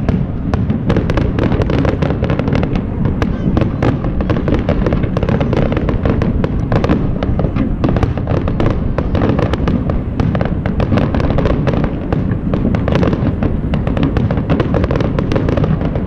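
A fireworks display: a dense, unbroken run of bangs and crackles from aerial shells bursting, over a steady low rumble.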